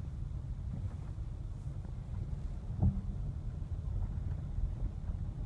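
Steady low rumble of a car's engine and tyres on a slushy road, heard from inside the cabin, with one short knock a little before the middle.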